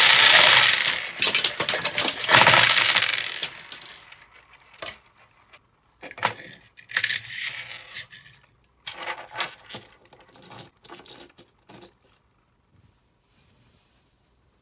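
A bottleful of small plastic balls pouring out and clattering onto a tabletop, a dense rattle for about three seconds. Then scattered clicks and short rattles of balls rolling and knocking together, thinning out and stopping near the end.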